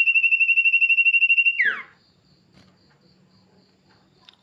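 Male sirtu songbird singing a fast, even trill on one high pitch, ending about a second and a half in with a quick downward slur, after which only a faint hum remains.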